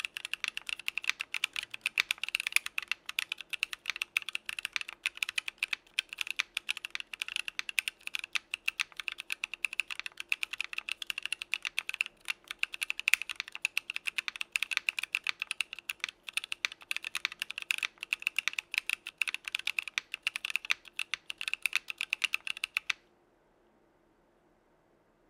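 Continuous fast typing on a mechanical keyboard fitted with lubed Gazzew Boba U4T tactile switches on an aluminum plate, CRP keycaps, with no foam or dampening: a dense run of key clacks. The typing stops abruptly near the end.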